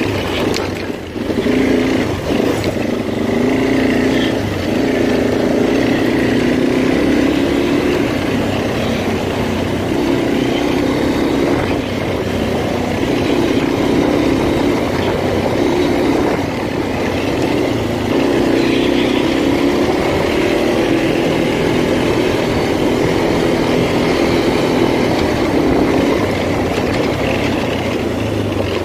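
Arctic Cat 400 ATV engine running while riding over a rough dirt trail, its note rising and falling with the throttle.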